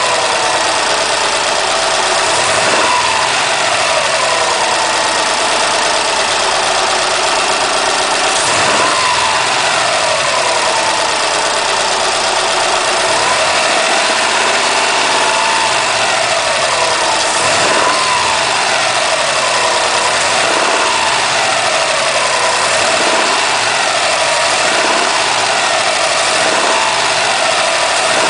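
2008 Subaru WRX's turbocharged flat-four engine running and blipped lightly again and again, its pitch rising and falling with each rev. The owner points to an odd motor noise that shows up between about 1500 and 2300 RPM under light revving.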